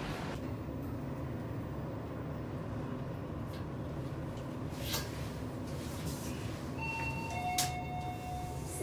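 Thyssenkrupp passenger lift car travelling up with a steady low rumble and a few faint clicks. Near the end a two-note descending chime sounds as the car arrives at the floor.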